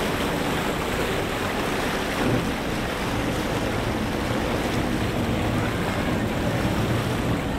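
Steady rush of wind on the microphone and water churning past the hull of a small boat under way across open water.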